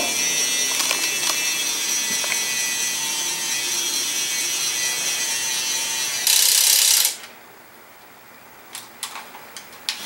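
Fast Lane toy crane's electric gear motor running with a steady high-pitched whine as it moves the boom and claw, louder and harsher for a moment about six seconds in, then stopping about seven seconds in, followed by a few light clicks.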